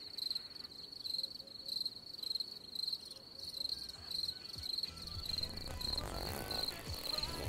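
Crickets chirping in an even, high-pitched pulse, a few chirps a second. About five seconds in, a low rumbling drone swells up beneath them and grows louder toward the end.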